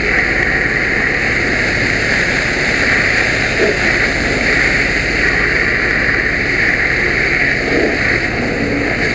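Fire hose nozzle spraying a steady stream of water onto an excavator, a loud, even hiss over a low rumble.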